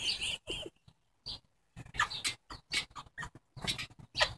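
Boxer dog making a string of short, broken vocal sounds, with a pause of about a second early on before they resume.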